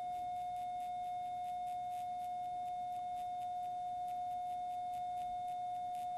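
Ellman radiofrequency surgery unit's activation tone: one steady, unbroken beep that sounds while the fine-wire electrode is energised and ablating a small skin lesion.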